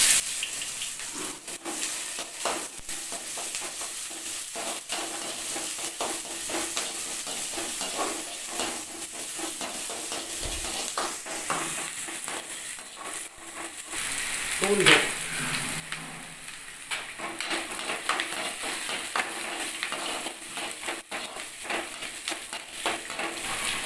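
Chopped onions and chana dal frying in hot oil in a stainless steel kadai, a steady sizzle. A metal spoon scrapes and clicks against the pan as they are stirred.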